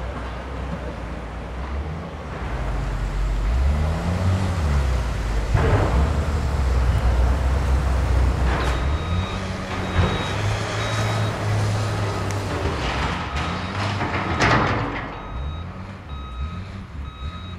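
Wheel loader's diesel engine running and revving up and down as it works, with a few sharp knocks. About halfway through, its reversing alarm starts beeping steadily, about one and a half beeps a second.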